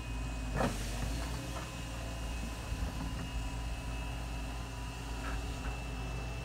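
Tracked excavator's diesel engine running steadily with a low hum, heard from a distance, with a thin steady high whine over it and one sharp knock about half a second in.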